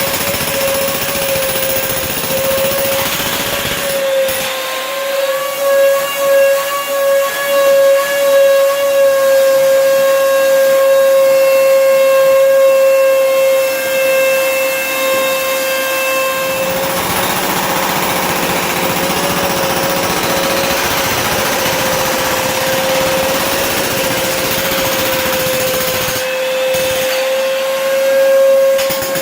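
An electric power tool's motor running continuously with a steady high whine, its loudness wavering for a few seconds in the first third.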